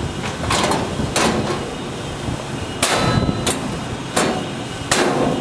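A new bottom plate being fitted into an outdoor cabinet, knocking and clanking against the cabinet frame about six times as it is set in place and slid in.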